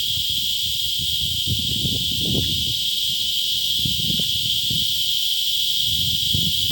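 Steady, high-pitched drone of an insect chorus in forest, unbroken throughout, with irregular low thumps and rustles underneath.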